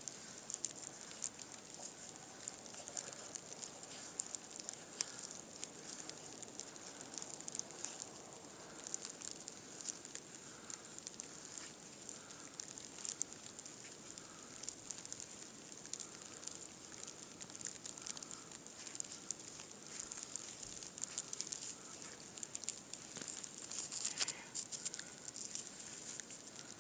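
Knife shaving a feather stick from a fatwood log: soft carving strokes roughly once a second amid many small crackly clicks and a steady high hiss.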